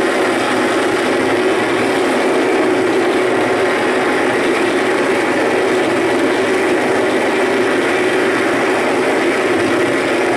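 A dense, steady wall of harsh electronic noise from a large rig of chained effects pedals, heaviest in a low droning band with hiss spread above it.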